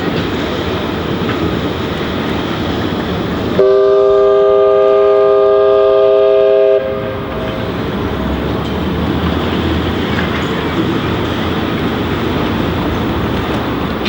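Steam whistle of the 1908 steamship S/S Tarjanne giving one long blast of about three seconds, a steady chord of several notes that starts about three and a half seconds in and cuts off sharply, with a short echo, over a constant rushing background noise.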